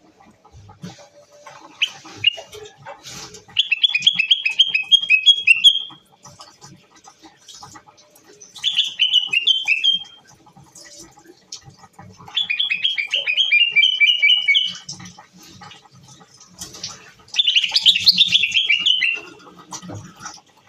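Common bulbul singing: four phrases of rapid, repeated whistled notes, each lasting about one and a half to two and a half seconds, with short pauses between them.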